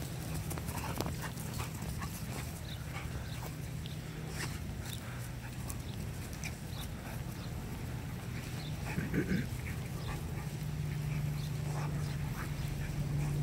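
A Samoyed and a Keeshond puppy play-wrestling: dog vocal sounds and scuffling, with one brief louder vocal sound a little past halfway, over a steady low hum.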